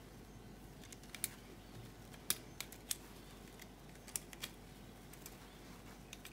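Small plastic clicks and snaps from a 1:6 scale M82A1 model rifle being handled, its magazine and bipod parts moved by hand. About ten sharp clicks come at irregular spacing, the loudest a little over two seconds in.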